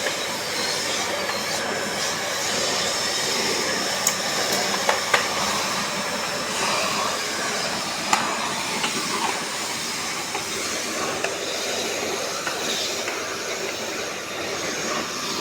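A steady rushing hiss with a few sharp clicks, about 4, 5 and 8 seconds in.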